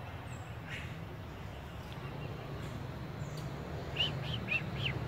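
Four quick high chirps in a row, about four seconds in, from a small animal, over a steady low background hum.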